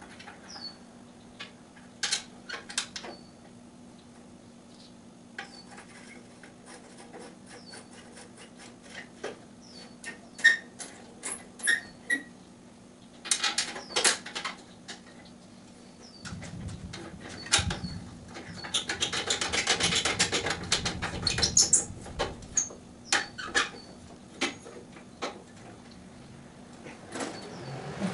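Scattered clicks, knocks and rattles of tools and metal parts as a push-mower handle is fitted and fastened back on, with a dense run of rapid clicking for a few seconds past the middle.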